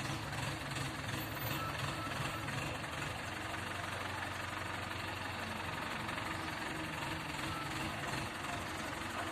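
A steady low mechanical hum of a motor or engine running evenly, with no strokes or starts.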